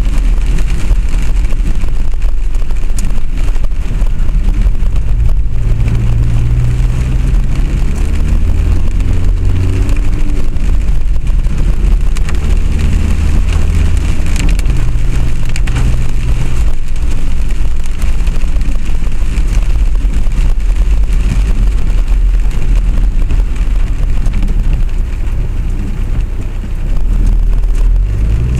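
Vehicle travelling in the rain: a steady low rumble with motor tones that rise and fall several times, and a hiss of rain and road noise over it.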